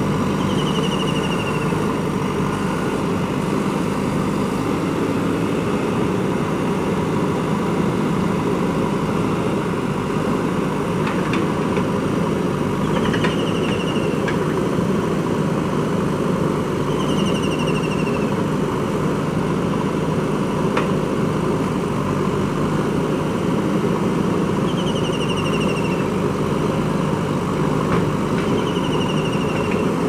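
JCB 3DX backhoe loader's diesel engine running steadily while the backhoe arm digs in mud. A short, high, falling chirp repeats every few seconds.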